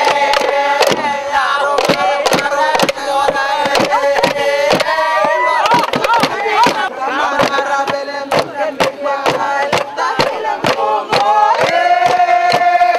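A group of male dancers chanting and singing together in a traditional New Ireland dance song, holding long notes. Sharp percussive strikes come often and irregularly through the chant.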